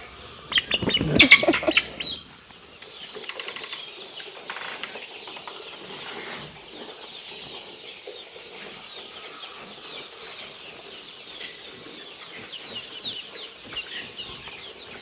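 A flock of young broiler chickens: a loud burst of wing flapping about half a second in, lasting under two seconds, then many birds cheeping steadily in short falling chirps.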